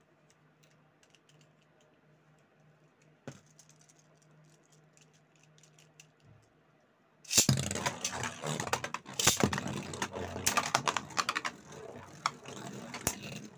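Quiet at first, with a faint low hum and a single click. About seven seconds in, two Beyblade spinning tops are launched into a plastic stadium and spin, rattling and clacking against each other and the bowl with rapid, irregular sharp clicks.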